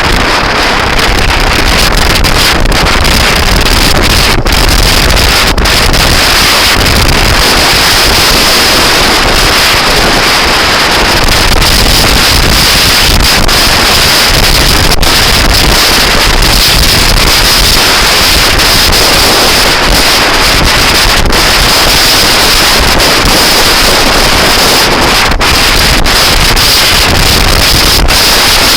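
Loud, steady wind noise buffeting the microphone of a moving scooter.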